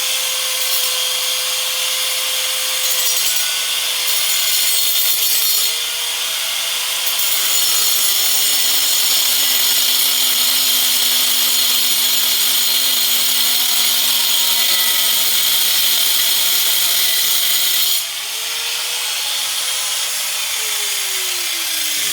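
Ryobi angle grinder with a 4-1/2" glass-cutting blade cutting steel: a loud, harsh high hiss of the cut over the motor's whine. The whine sags lower in pitch for about ten seconds as the blade bogs down in the cut, rises again when the blade comes free, and then starts to wind down, falling in pitch, near the end.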